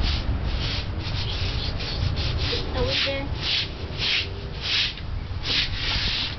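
Broom bristles sweeping a concrete porch floor in short scratchy strokes, about two a second.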